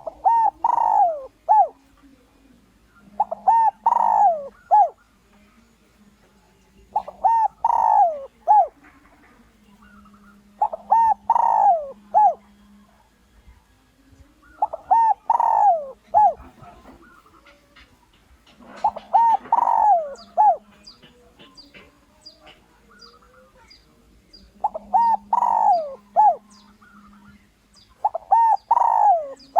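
Spotted dove (Streptopelia chinensis) cooing its repeated territorial call: eight short phrases of about four quick coo notes each, one every three to four seconds. It is a decoy call, played to draw male doves in to answer and fight.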